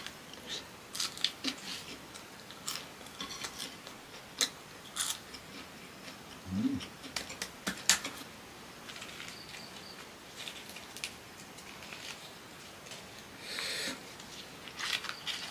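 Close-miked chewing of crisp fried cassava, with scattered sharp crunches and mouth clicks. Near the end a leaf wrapper rustles as it is unwrapped.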